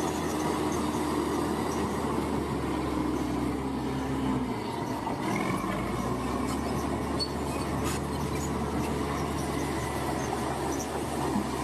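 Heavy road-construction machinery with its engine running steadily, a low rumble that drops away briefly about halfway through.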